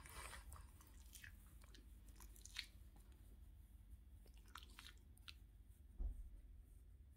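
Faint scratching and rustling of fingernails rubbing a Boston terrier's belly fur, with soft rustles of the knitted blanket beneath it: scattered short scratchy ticks and one soft low thump about six seconds in.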